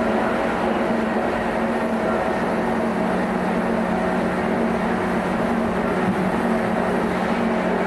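Veneer peeling lathe running, peeling an Okoume log: a steady mechanical hum and rush, with a drone that drops slightly in pitch about two to three seconds in.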